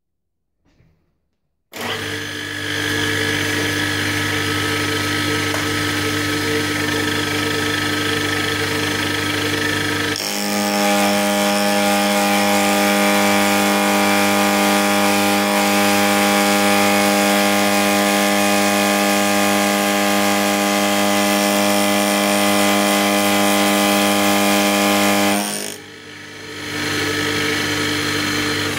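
Homemade two-insert APMT carbide cutter at 2900 RPM milling a shoulder in cold-rolled steel, fed at 13 IPM: a loud, steady cutting sound with a strong mix of fixed pitched tones. It starts about two seconds in, its pitch changes about ten seconds in, and it drops out briefly near the end before picking up again.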